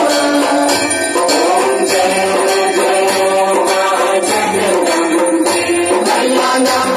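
Hindu devotional aarti music with a melody and a steady jingling percussion beat.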